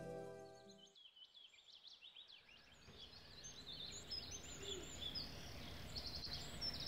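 Brass music fades out about a second in, then birds chirp and call in a garden over faint outdoor ambience, with a rapid trill about six seconds in.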